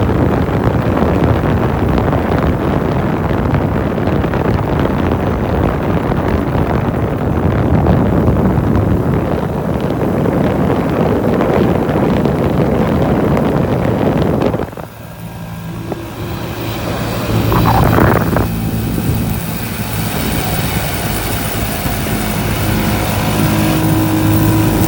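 Motorcycle riding at speed, with heavy rushing wind and road noise over the engine. About two-thirds of the way through the rush drops off sharply, leaving the engine's steady hum.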